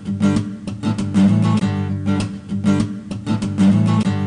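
Background music: a guitar strumming in a steady rhythm.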